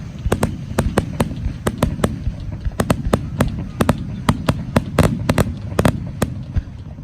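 Fireworks display: a rapid, irregular volley of sharp bangs from bursting shells, several a second, over a low rumble. It stops shortly before the end.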